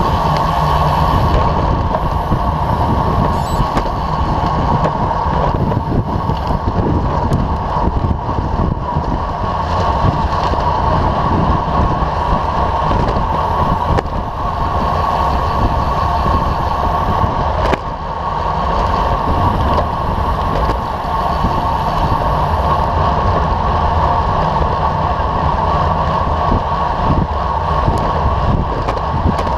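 Steady rush of wind and tyre-on-asphalt road noise picked up by an action camera mounted on a road bike at racing speed.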